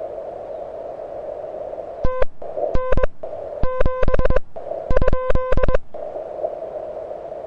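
Hiss from an HF receiver heard through a narrow CW filter, then Morse code keyed as a buzzy tone in several groups of dots and dashes from about two to six seconds in. The hiss cuts out whenever the key is down, as with the operator's own sidetone while the QRP rig transmits.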